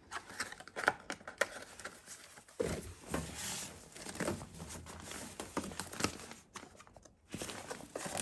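Packaging being handled, rustling and crinkling, with small clicks and knocks throughout.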